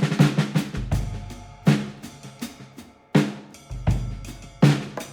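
Background music: a drum-heavy track with sharp snare-like hits over deep bass booms.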